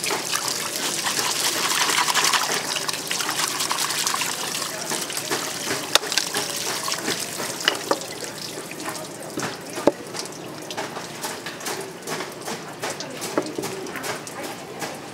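Water running from a tap into a sink, strongest in the first few seconds and easing off after about five. A few sharp knocks follow, then a run of quick light clicks.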